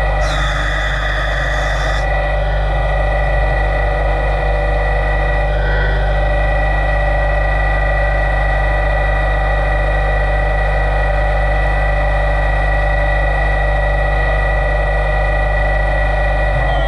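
LT-65 CNC lathe running a bar-fed job: a loud, steady machine hum with several steady whining tones, and a hiss that stops about two seconds in.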